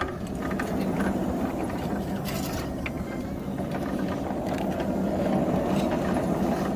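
Band sawmill machinery running: a steady mechanical noise that starts abruptly and holds.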